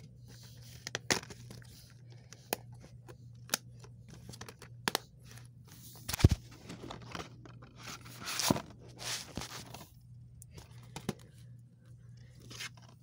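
Handling noise of plastic DVD cases and the phone: scattered clicks and rustles, with a louder knock about six seconds in and a burst of rustling a couple of seconds later.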